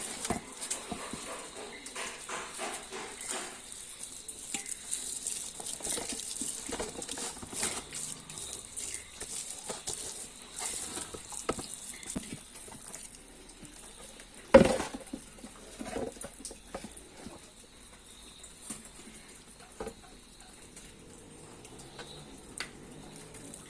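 Hands rubbing wet masala paste onto a large fish: soft, irregular wet squelches and slaps, with one sharp knock about fifteen seconds in.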